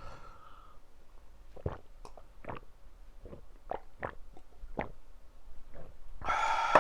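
Close-miked chewing of mala ramyun noodles: scattered wet mouth clicks and smacks. A louder breathy sound comes near the end.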